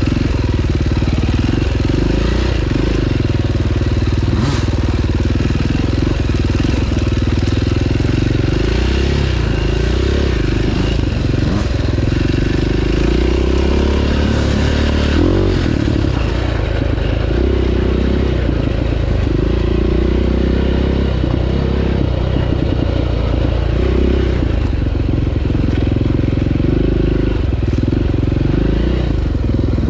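2009 KTM 530 EXC single-cylinder four-stroke engine running hard on a dirt trail, its revs rising and falling over and over as the throttle is opened and closed.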